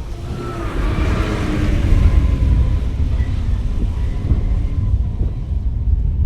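A motor vehicle running, heard as a heavy low rumble that grows louder about a second in, with faint steady tones from the engine over it.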